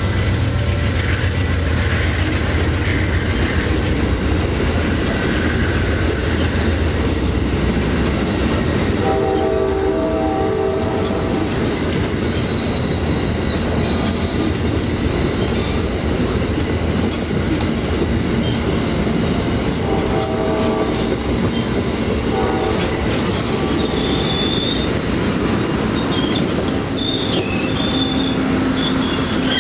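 Amtrak Silver Meteor's single-level passenger cars rolling past at speed: a steady rumble of wheels on rail with clickety-clack. High-pitched wheel squeals come and go, and the locomotive's low engine hum fades in the first few seconds.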